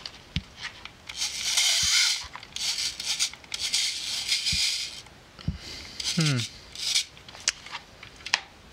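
Hands working a Ricoh Auto Half half-frame camera. There are three rasping, ratchet-like stretches of about a second each as the knurled winding knob on its base is turned, then scattered light clicks and knocks from its mechanism and handling.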